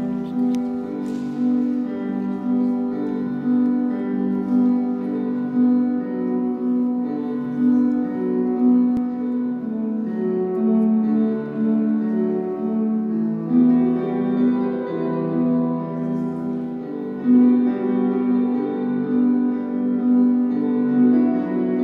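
Casio electronic keyboard playing a slow melody over sustained chords, the notes held and overlapping.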